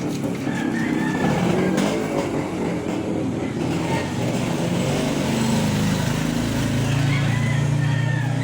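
An engine running steadily with a low drone, its pitch wavering slightly.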